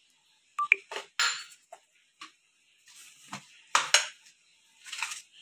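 Stainless-steel kitchenware being handled: irregular short clinks and knocks of a steel cup, spoon and mixing bowl being picked up and set down, a few with a brief ring or scrape.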